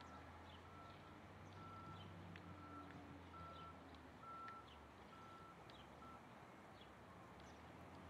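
Faint, distant vehicle reversing alarm beeping about once a second, stopping about six seconds in, over a low steady engine hum. A few faint, short bird chirps sound now and then.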